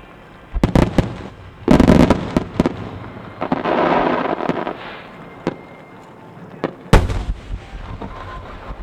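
Aerial fireworks shells bursting in a starmine: a few sharp bangs, a loud burst about two seconds in, then about a second of rushing noise, and another sharp bang near the end.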